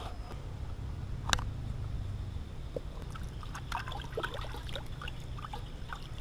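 Water splashing and dripping as hands wash raw pork ribs in a steel bowl of water, with small irregular splashes from about halfway on. There is a single sharp click about a second in, and a low steady rumble underneath.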